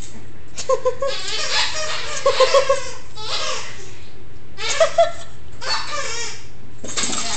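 A person laughing in short bursts of giggles, with quick runs of 'ha' pulses and breathy exhales in between.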